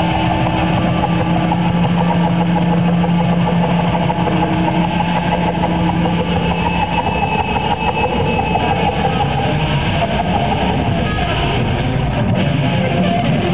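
Electric guitar laid flat across the player's lap and played as a noise instrument through amplification: a loud, dense, engine-like drone with two steady held tones that drop out about halfway through.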